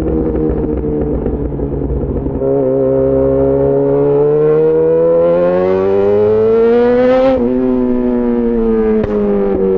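Yamaha XJ6 S inline-four through an SC-Project aftermarket exhaust, heard from on the bike while riding. The engine note climbs steadily under acceleration, drops sharply at a gear change about seven seconds in, then falls slowly as the rider eases off.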